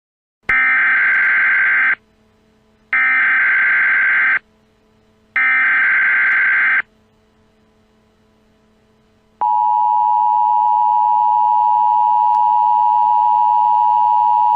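Emergency Alert System SAME header: three harsh bursts of digital data screech, each about a second and a half long with short gaps. About nine seconds in, the EAS two-tone attention signal starts and holds steady. Together they mark the start of an emergency alert broadcast.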